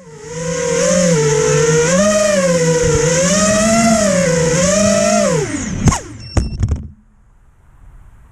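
FPV freestyle quadcopter's brushless motors and propellers whining, the pitch wavering up and down with the throttle. About five and a half seconds in, the pitch drops away, a few sharp knocks follow, and the sound stops a second later.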